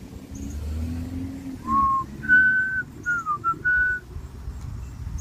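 A person whistling a short tune: a few clear held notes with one falling glide, starting about a third of the way in.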